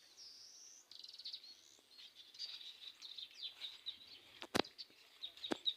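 Small birds chirping and calling: short high chirps, whistled glides and a quick trill. Two sharp clicks sound near the end, the first the loudest.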